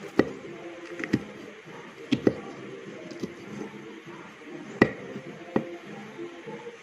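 Kitchen knife slicing ghost chillies on a wooden plank: scattered sharp knocks of the blade striking the wood, a couple of them in quick pairs.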